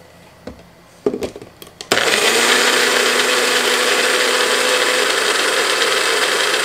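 Magic Bullet blender: a few clicks as the cup is seated on the base, then about two seconds in the motor starts and runs steadily, blending a liquid marinade of olive oil, lemon juice, garlic and spices.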